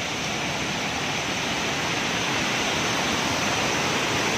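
Steady rushing of a waterfall that only flows in rainy weather, growing slightly louder.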